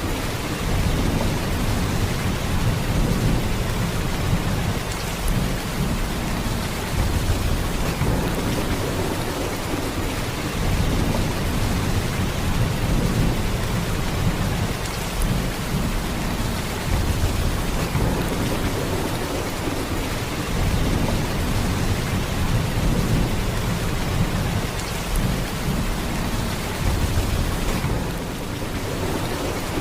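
Heavy rain falling in a steady downpour, with a deep low rumble underneath that swells and eases every few seconds.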